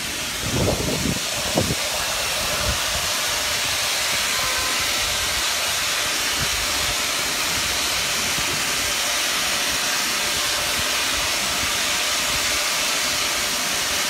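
Natural gas hissing steadily out of a split gas pipe under pressure, a loud even rush, with a few dull low thumps in the first two seconds.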